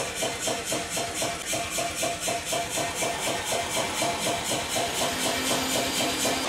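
Self-contained air power hammer running at idle, its compressor chuffing in an even rhythm of about four pulses a second.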